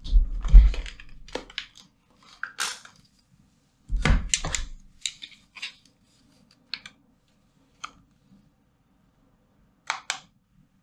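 Irregular clicks and knocks, with dull thumps near the start and again about four seconds in.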